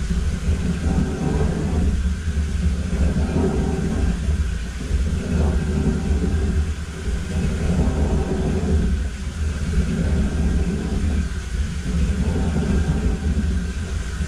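Low, steady rumble of a high-pressure sewer jetter's Warthog rotating nozzle working through tree roots inside the sewer pipe, swelling and easing about every two seconds.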